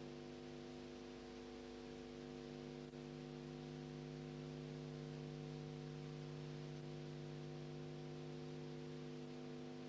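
Steady electrical mains hum, a fixed buzzing chord of tones, under a constant hiss, with a brief dropout about three seconds in.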